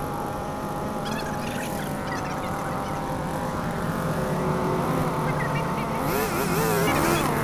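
Chainsaw running at cutting speed in a tree trunk, a steady engine tone that wavers up and down in pitch near the end.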